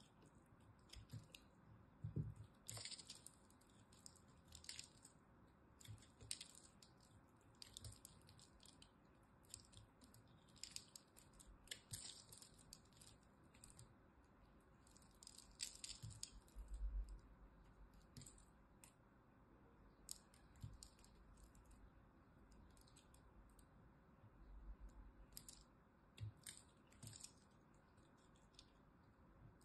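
Utility knife blade cutting into a dry, crumbly block of pressed soap chunks: quiet, irregular crisp crunches and crackles as pieces break away, with a few dull low bumps.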